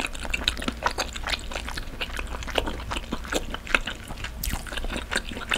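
Close-miked wet chewing and mouth smacking on a mouthful of spicy braised monkfish, a rapid string of small sticky clicks.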